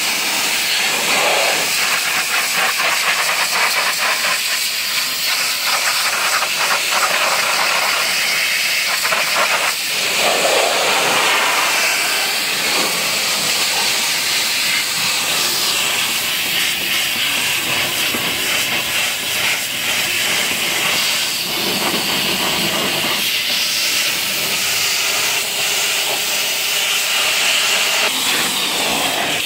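High-pressure washer jet spraying water onto a car's tyre, hubcap and inner wheel arch: a steady loud hiss whose lower tone shifts as the jet moves across the different surfaces.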